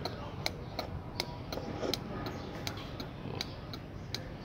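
Three-pin car turn-signal flasher relay clicking steadily, about three clicks a second, as it switches a 21 W bulb on and off: a normal flash rate, showing the flasher still works.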